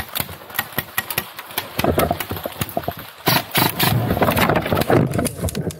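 Airsoft guns firing: sharp clicks in irregular rapid runs, thickest in the second half.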